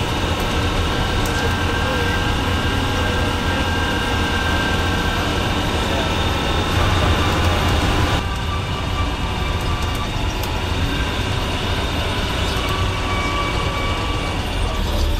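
Engine drone and gravel-road noise heard from inside a bus driving on an unpaved road, with a steady low rumble and small rattles and clicks. The noise eases slightly about eight seconds in.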